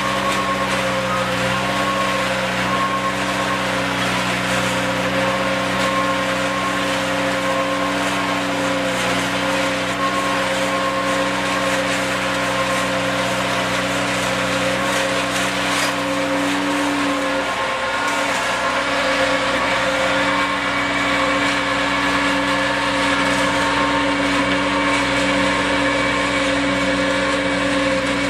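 Tractor engine and the mounted Pellenc TRV60 pre-pruning machine running steadily while its rotating disc stacks cut through vine canes. It is a continuous mechanical drone with a few steady held tones, which wavers briefly a little past the middle.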